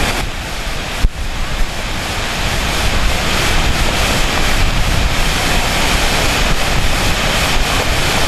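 Swollen, muddy river in flood rushing and churning, a loud steady rush of water. A short sharp click about a second in.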